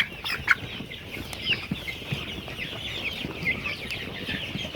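Flock of eight-week-old layer pullets cheeping, many short high calls overlapping without pause, with a few faint knocks.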